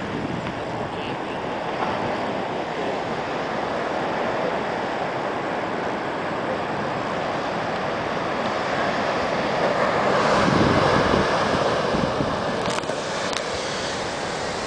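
Atlantic surf breaking on a sandy beach, a steady wash of waves that swells to its loudest about ten seconds in, with wind buffeting the microphone.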